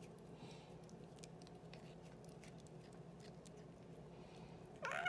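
Domestic cat quietly biting and chewing a feather wand toy, a few faint clicks and rustles. Near the end the cat starts a loud meow that rises in pitch.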